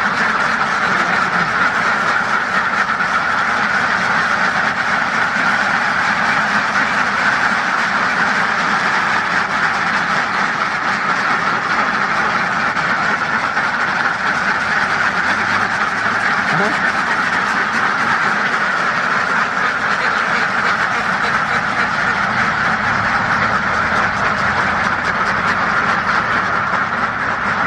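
A large flock of ducks quacking continuously, their many calls overlapping into a dense, steady din.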